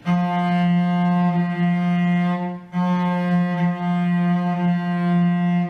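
Cello bowed on one low sustained note around F, in two long strokes with a brief break about two and a half seconds in. It is the cello's wolf tone, where bow and string seem to fight each other and the note does not come out smooth.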